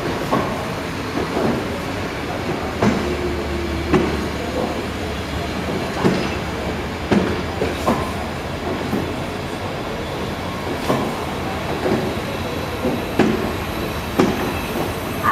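CFR passenger coaches rolling past, their wheels knocking over rail joints roughly once a second over a steady rolling rumble.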